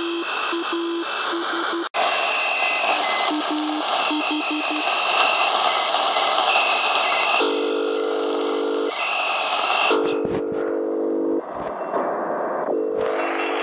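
Shortwave receiver hiss with a keyed signal switching on and off. First come short high and low beeps, then after a break longer blocks of several low tones sounding together. It sounds Morse-like, but it is not ordinary Morse. A few low knocks near the end.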